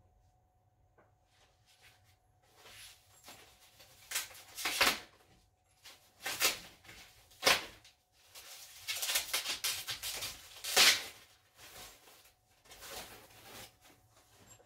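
Packing material being handled and pulled off a new bike: a run of rustling, scraping bursts, loudest about four to five seconds in and again near eleven seconds.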